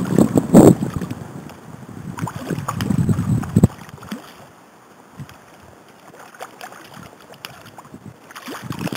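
River water sloshing and splashing around a wading angler, in uneven surges, with a hooked trout thrashing and splashing at the surface near the end.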